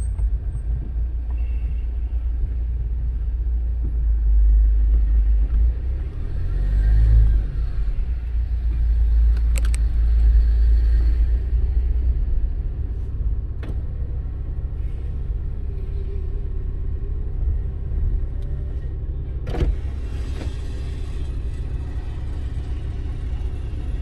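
Low, steady rumble of a car driving along a road, heard from the moving car, swelling a little in the first half. A few brief sharp clicks.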